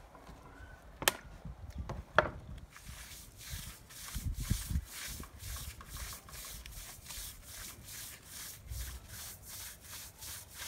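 Stiff-bristled broom scrubbing a soaped, wet rug on concrete in quick, regular strokes, about three a second, starting about three seconds in. Two sharp knocks come before the scrubbing starts.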